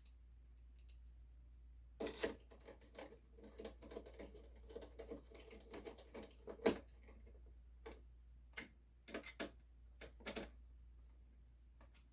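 Irregular small clicks and rattles of a magnetic screwdriver and metal mounting hardware as the screws of a Noctua cooler's AM4 mounting bars are driven in. There is one sharper click about two-thirds of the way through.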